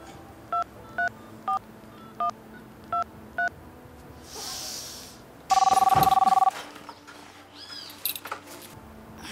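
A mobile phone's keypad sounds seven short two-tone dialing beeps over about three and a half seconds as a number is tapped in. About two seconds later a phone rings once, a loud buzzy two-tone ring lasting about a second.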